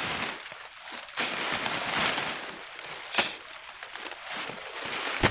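Rustling and swishing of dense grass and fern fronds as a person moves through thick vegetation, with a sharp snap about three seconds in and another near the end.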